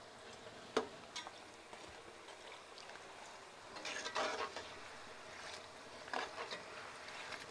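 Plantain slices deep-frying in oil with a faint steady sizzle. A slotted metal spatula stirring them scrapes and knocks against the metal pot a few times, most strongly about four seconds in and again around six seconds.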